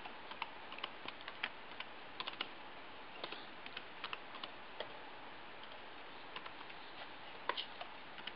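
Computer keyboard being typed on: faint, irregular single keystrokes with short pauses between them, growing sparse for a couple of seconds past the middle.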